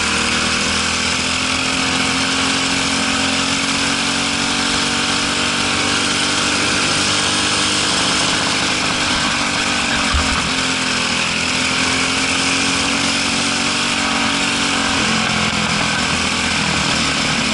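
Briggs & Stratton LO206 single-cylinder four-stroke kart engine running under way over a steady hiss. Its pitch rises gently, dips about ten seconds in with a short low thump, climbs again and drops near the end.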